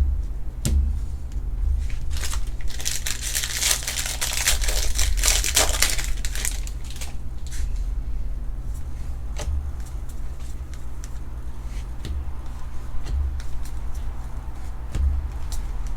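A trading card pack's foil wrapper being torn open and crinkled for a few seconds, followed by scattered light clicks and soft bumps as the cards are handled.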